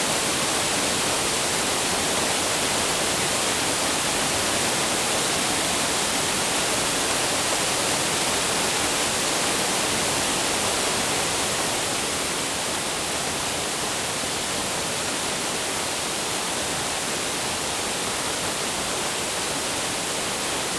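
Waterfall close by: a steady rush of falling water across the whole range from deep to hiss, easing slightly about twelve seconds in.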